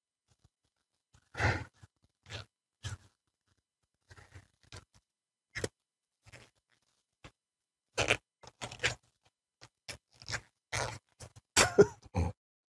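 Thin disposable glove being stretched and tugged onto a hand: a string of short, irregular rubbery squeaks, snaps and rustles, more frequent in the second half. The glove is going on with difficulty.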